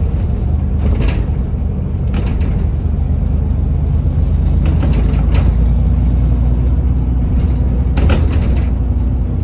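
London bus engine running with a steady low rumble, with a few scattered knocks and rattles.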